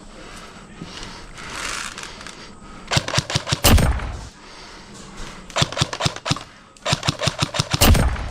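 Umarex/KWA G36C airsoft electric rifle firing three bursts on full auto, each a rapid string of mechanical cracks, the last and longest just over a second.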